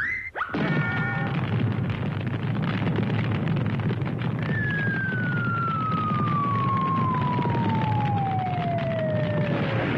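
Cartoon sound effects for a felled tree toppling: a long rumbling crash, and from about halfway through a single whistle that falls steadily in pitch for about five seconds.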